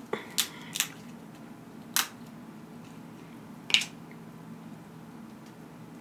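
Cooked snow crab leg shell cracking as it is snapped and pulled apart by hand: a few sharp cracks in the first second, another about two seconds in, and the loudest near four seconds. A faint low hum sits underneath.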